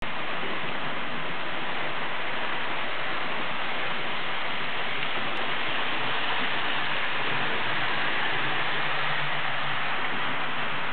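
Steady, even whirring rush of model trains running on the layout's track, unchanged throughout.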